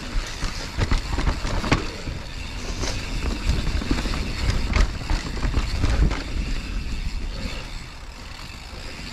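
Mountain bike rolling fast down a dirt trail, tyres running over loose dirt and dry leaves, with frequent knocks and rattles from the bike over bumps and a low rumble throughout. It goes a little quieter near the end.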